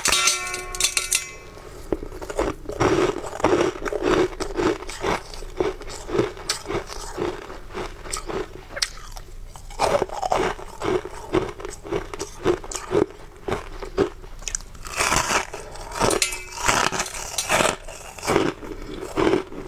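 Teeth biting and chewing through a lump of blue-tinted frozen ice in close-up, a run of sharp, brittle crunches with a couple of short pauses between bites.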